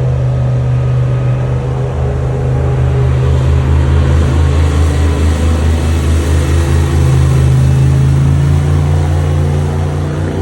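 Side-by-side UTV engine running steadily under way, its pitch rising a little partway through.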